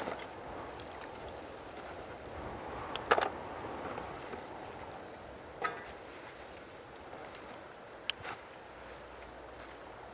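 Steady outdoor background noise with a few sharp knocks or clicks, the loudest about three seconds in, others near six and eight seconds.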